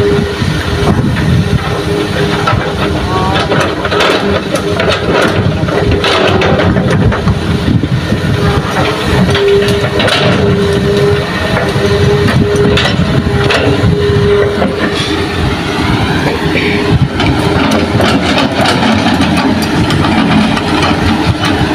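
Hitachi hydraulic excavator working: its diesel engine runs steadily under load with a whine that comes and goes. Scattered knocks and thuds come from the bucket working soil into a dump truck.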